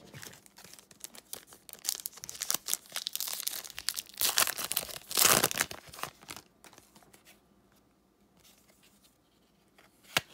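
Plastic wrapper of a 2018-19 NBA Hoops trading card pack being torn open and crinkled, starting about two seconds in and lasting around four seconds, loudest about five seconds in.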